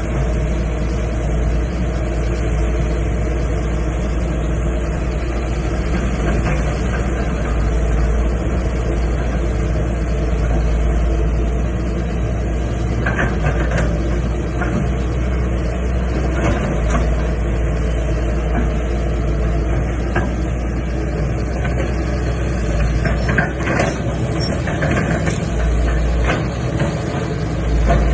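Excavator's diesel engine running steadily while it digs, with occasional short knocks from about halfway through.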